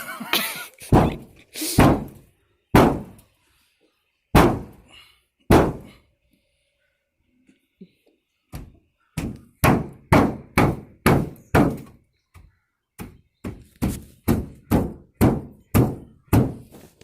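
Repeated heavy thunks of blows against a car's dented sheet-metal roof as it is forced back into shape. A few spaced blows come first, then a short pause, then a quicker run of about two a second.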